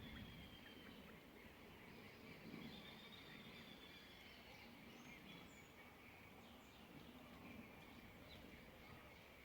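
Faint birds calling: a drawn-out whistled note about two seconds in and a few short high chirps around the middle, over a low steady background hiss.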